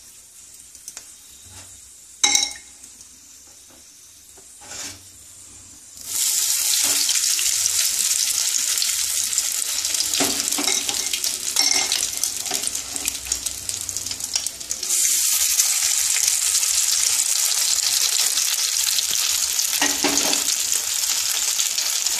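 Batter-coated brown bread sandwiches frying in hot oil in a kadai. It is fairly quiet at first with a few light knocks, then a loud sizzle starts suddenly about six seconds in as the first sandwich goes into the oil. The sizzle steps up louder again about fifteen seconds in as a second sandwich is added.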